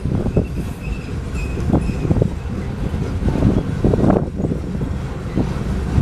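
Loaded coal train cars rolling through a grade crossing, the steel wheels clattering in uneven knocks over the rail joints and crossing, over a steady low rumble.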